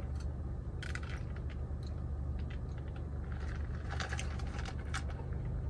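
Iced coffee drink sipped through a straw from a plastic cup, with small clicks and rattles of ice and plastic as the cup is handled, over a steady low hum in a car cabin.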